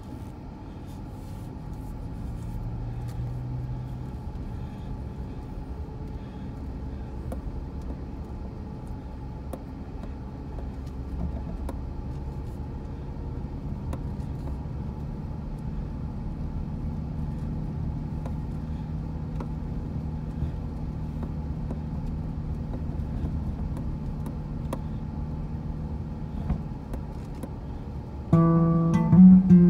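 Car driving slowly over a snow-covered track, heard from inside the cabin: a steady engine drone and tyre rumble with scattered light clicks. An acoustic guitar song starts near the end.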